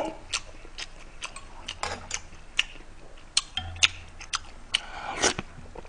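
A metal spoon clicking and clinking against a pot of seafood doenjang stew as broth is scooped up: about a dozen light, irregular taps.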